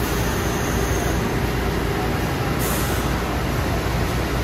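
Steady machine hum and noise from a powered-up CNC tool grinder and the shop around it, with a brief high hiss about two and a half seconds in.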